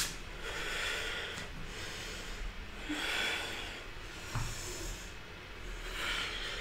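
A woman's audible breaths during a yoga vinyasa, three long breaths a couple of seconds apart, with a soft knock of the body on the mat about four and a half seconds in.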